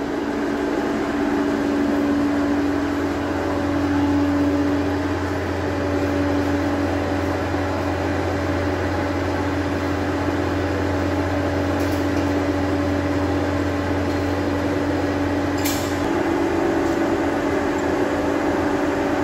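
Forge air blower running steadily, a constant hum with rushing air, feeding the fire to heat a steel rod for bending. A deeper part of the hum drops away about three quarters of the way through, and there are a couple of faint clicks.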